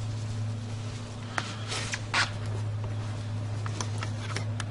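A burning dry-grass tinder bundle crackling, with a few sharp pops, over a steady low hum.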